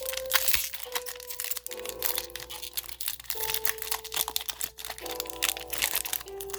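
Mellow background music with held chords that change every second or so, over the crinkling and tearing of a foil booster pack wrapper being opened by hand.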